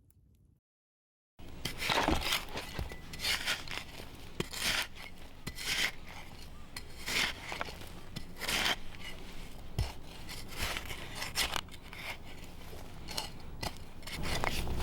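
Repeated scraping and rubbing strokes with light clinks, like utensils worked against a dish or board, starting about a second and a half in after a short silence.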